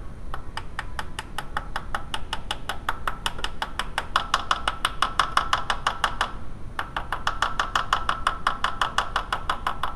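Rapid, even hammer taps, about six a second, on a seal installation tool, driving a new camshaft seal into a VW 2.0L ABA cylinder head. The taps pause briefly about six seconds in, and their ringing pitch changes as the seal bottoms out in its bore.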